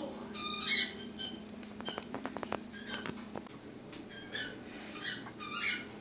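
Maytag Jetclean Quiet Pack dishwasher running: a steady pump hum with short, high-pitched squeaks coming at irregular intervals and a quick run of ticks about two seconds in. The squeaking is the fault noise, a broken-off piece of the discharge pump housing rubbing on the impeller.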